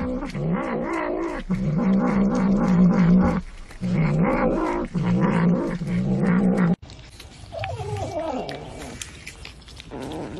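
A cat growling and yowling in four long, wavering calls. After about seven seconds it cuts off abruptly and the sound becomes much quieter, with a faint whining call.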